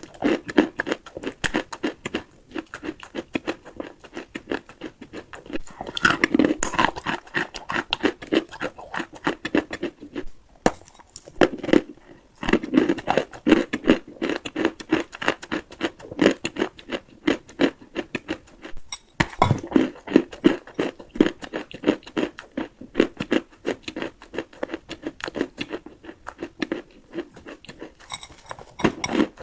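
Dry edible clay being bitten and chewed close to the microphone: a dense, unbroken run of crunches and crackles, with heavier bites about six, twelve and nineteen seconds in.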